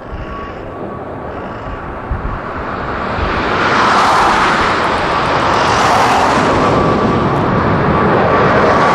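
A Boeing 777-300ER's twin GE90-115B turbofans at takeoff thrust as the airliner climbs out. The jet roar swells over the first four seconds or so, then holds loud, with a steady high whine running through it.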